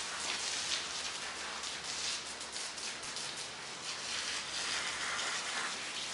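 Water spraying from a garden hose onto a dog's coat and the wet asphalt under it, a steady hiss of spray.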